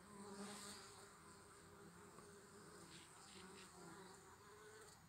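Faint buzzing of honeybees flying in and out at the entrance of a log hive, the pitch wavering as individual bees pass.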